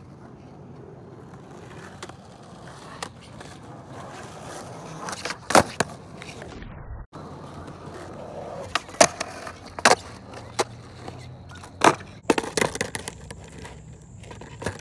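Skateboard wheels rolling on concrete, broken by sharp clacks of the board slapping the ground, about half a dozen, most of them from about five seconds in.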